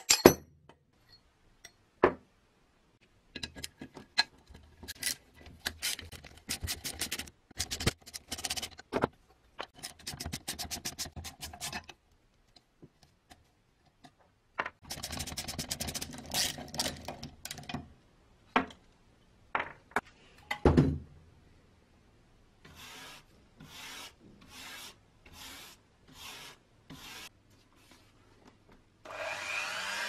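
Socket wrench working the rusted nuts of a cast-iron Peugeot A1 hand coffee grinder (c. 1900): scattered clicks and runs of rapid metal grating, a loud knock about two-thirds of the way through, then a short series of evenly spaced scrapes. Near the end a small rotary tool starts up and runs with a steady whine.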